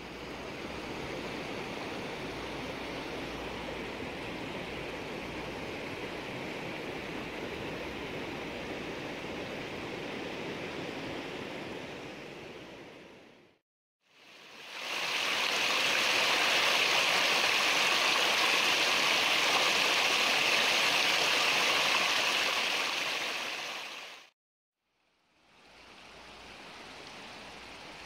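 Mountain stream rushing and splashing over rocks, a steady rushing noise heard in three takes split by brief cuts to silence. The middle take is the loudest and the last is the faintest.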